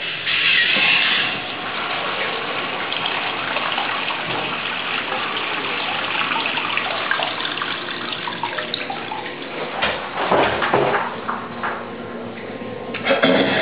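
Bardon urinal flushing. A sudden rush of water at the start settles into steady running water, which turns uneven and splashy about ten seconds in, with a louder burst near the end.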